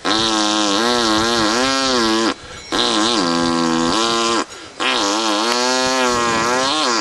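A man imitating a motor with his voice: three long revving sounds, each about two seconds, whose pitch wavers up and down, with short pauses between them.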